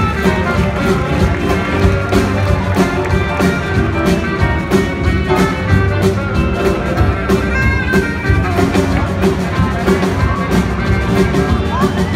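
Loud music with a steady beat.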